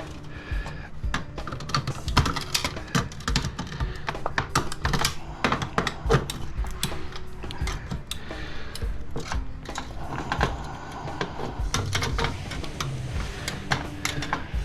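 Hand tools and small metal parts clicking and clattering in quick, irregular taps as a small light fixture is worked apart for scrap, over background music.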